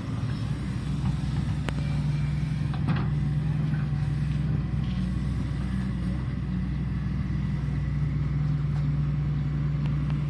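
Shantui ME210LC-1 crawler excavator's diesel engine running steadily at working speed, with two sharp knocks about two and three seconds in.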